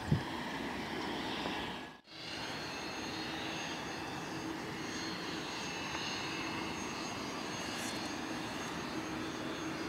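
Distant jet aircraft engine noise, steady throughout: a small business jet taxiing, then after a cut about two seconds in, an Airbus A330's engines running as it waits on the runway. A brief thump at the very start.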